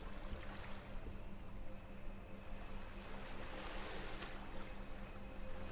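Ambient lake-water sound: a gentle wash of lapping water with a low steady hum beneath it, the wash swelling a little in the middle.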